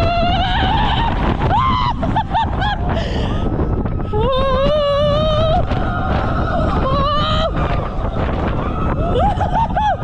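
Wind rushing over an on-ride camera's microphone as a roller coaster train runs along the track, with riders screaming and whooping in several wavering bursts.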